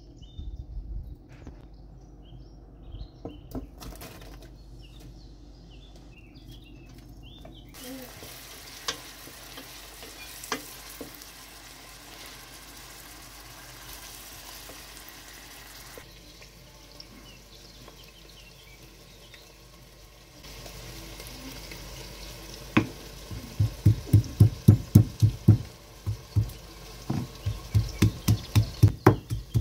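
Chopped onions sizzling in oil in a stainless steel pot, with a wooden spoon stirring and now and then knocking the pot. Near the end a stone pestle pounds in a granite mortar in a steady rhythm of about three strikes a second.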